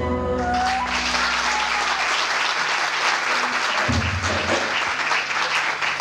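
Traditional folk-dance music dies away in the first second and an audience breaks into sustained applause.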